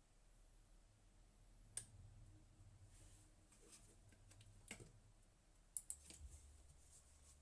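Near silence broken by a few faint, sharp clicks, two of them in quick succession about three-quarters of the way through, over a faint low hum.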